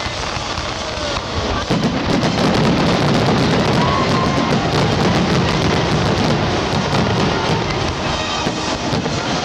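Fireworks bursting in a rapid barrage of bangs and crackles, growing louder about two seconds in, with music playing along.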